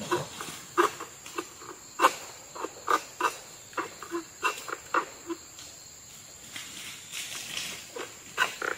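Insects droning steadily at a high pitch, with short, irregular clicks about two a second.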